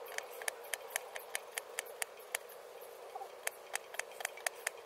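Small fire crackling in a Firebox Nano twig stove: irregular sharp pops and snaps, about four or five a second, over a faint steady hiss.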